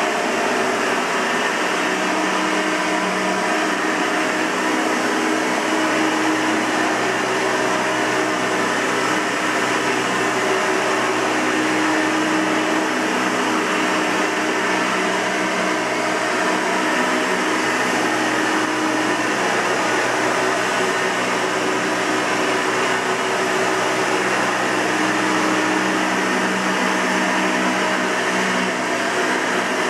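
1992 Hoover Elite 200 bagged upright vacuum cleaner running steadily: a continuous motor whine over a rush of air.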